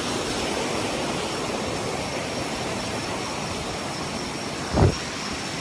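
Steady rushing of a swollen, muddy river in strong current. A brief low thump comes near the end.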